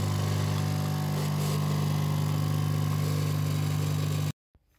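Coffee machine running as it dispenses coffee into a mug: a steady hum that cuts off abruptly near the end.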